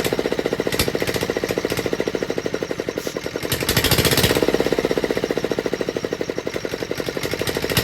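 Freshly rebuilt single-cylinder Greaves diesel engine running with a rapid, even tak-tak-tak firing beat, briefly louder about four seconds in. The steady beat is the sign of a healthy engine after its repair: a good, clean sound.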